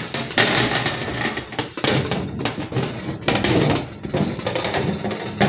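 Thin aluminium evaporator plate scraping and clattering against the plastic freezer liner as it is slid and settled into place, an irregular rough scraping with uneven knocks.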